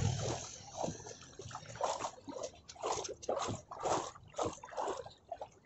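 Footsteps wading through street floodwater: a splash and slosh with each stride, about two to three a second, uneven in strength.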